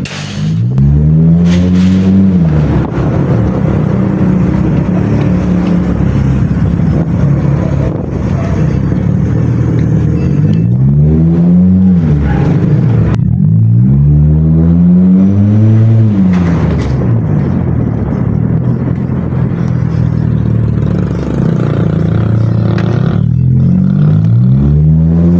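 An engine revving up and easing off about five times, each rev rising and falling in pitch over one to three seconds, over a steady loud background.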